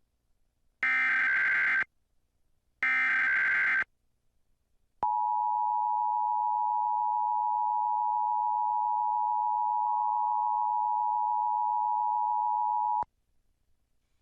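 Emergency Alert System test alert: two one-second bursts of SAME header data tones a second apart, then after a pause the steady two-tone attention signal for about eight seconds, cutting off abruptly.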